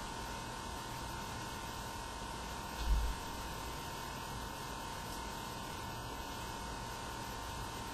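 Steady hiss and faint hum of a camcorder's recording noise in an empty room, with a thin constant tone, and one dull low thump about three seconds in.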